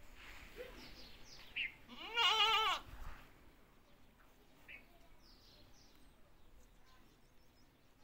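A goat bleats once, about two seconds in: a single wavering call lasting under a second. A few short, high chirps sound around it.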